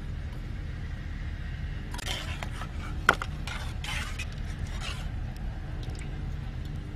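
Metal ladle scraping and clinking against a metal tray and wok as cooked chicken feet are scooped out and piled on, a run of scrapes in the middle with one sharp clink about three seconds in. A steady low rumble lies underneath.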